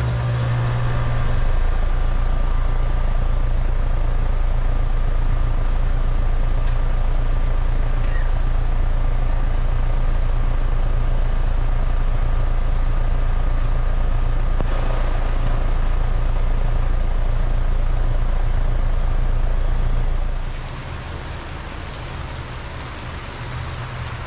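2007 Rheem Classic Series heat pump outdoor unit running in cooling mode just after start-up: a loud, steady low hum from the compressor and fan. About 20 seconds in the level drops noticeably and the low hum weakens.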